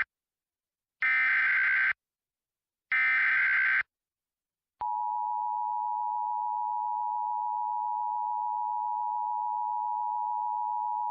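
Emergency Alert System SAME data header: two harsh digital bursts about a second long each, a second apart. About five seconds in, the steady EAS two-tone attention signal starts and holds, still sounding at the end.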